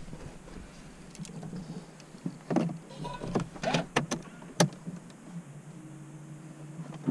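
A run of sharp clicks and small knocks from hands working controls inside a stationary car's cabin, followed by a faint steady hum near the end.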